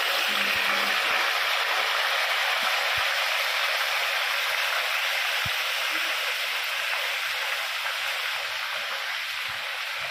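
Whole roasted chicken deep-frying in hot oil over a high flame: a steady sizzling hiss of bubbling oil with scattered small pops, easing off slightly toward the end.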